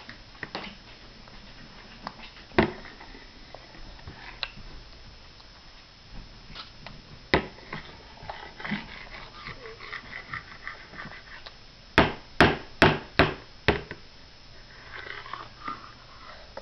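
A metal fork clicking and tapping on a plastic high-chair tray while a toddler eats noodles, with five quick sharp taps near the end; softer snuffling and mouth sounds between the taps.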